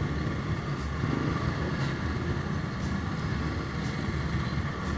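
Steady low rumble of vehicle engines and road noise in heavy, slow-moving traffic.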